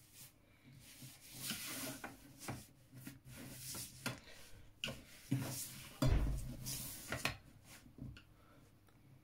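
Plastic set squares sliding and rubbing over drawing paper, with a string of light knocks as they are moved and stacked, and a louder knock about six seconds in.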